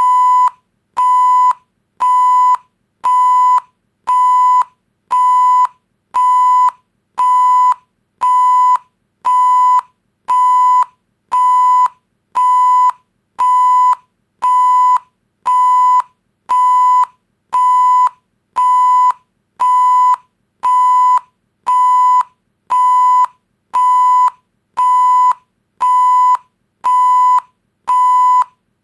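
Electronic beep-tone sound effect: a steady pure tone near 1 kHz, like a censor bleep, repeating in short beeps about once a second.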